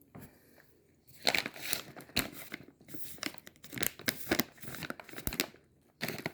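A trail mix bag being handled and crinkled, in irregular bursts of crackling starting about a second in, with a short pause before a final burst near the end.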